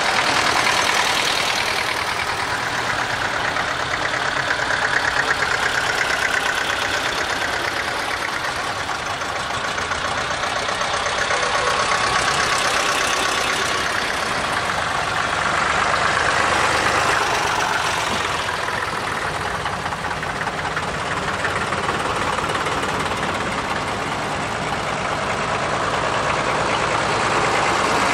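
Vintage farm tractors' diesel engines running at low speed as the tractors drive past one after another, the sound swelling and fading several times as each one passes.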